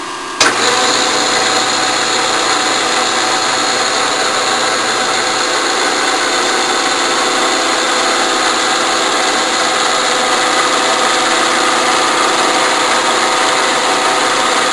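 Vertical milling machine running, its spindle turning a carbide face cutter of about an inch and a half. A steady whir with a layered whine comes on abruptly about half a second in and holds level.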